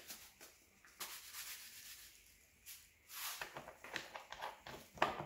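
Light brown sugar trickling from a plastic bag onto custard in a ramekin, a faint soft hiss about a second in. From about three seconds in, the plastic sugar bag crinkles as it is handled, a run of small crackles.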